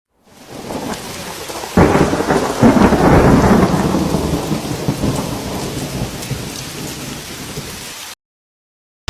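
Thunderstorm sound effect: steady rain fades in, then a sharp thunderclap about two seconds in rolls into a long rumble that slowly dies away over the rain. It cuts off abruptly near the end.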